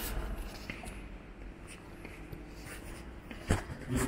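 Quiet indoor ambience: faint scratchy rustling with scattered small clicks, and one sharper click about three and a half seconds in.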